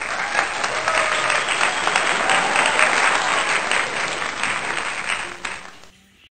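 Crowd applauding, a dense steady clapping that fades out near the end.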